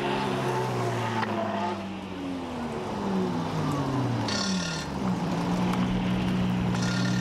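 Drift cars' engines running hard. The engine note drops in pitch from about two and a half to five seconds in, then holds steady, with short high tyre squeals about four and a half seconds in and again near the end.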